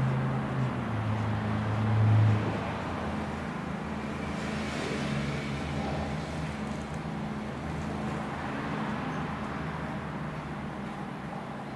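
Steady low engine drone, with a louder low hum over the first two seconds or so that drops once in pitch and then stops.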